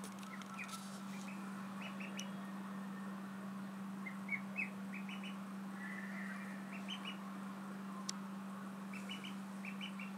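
Ducklings peeping: short high cheeps in small clusters of two to four, every second or two, over a steady low hum.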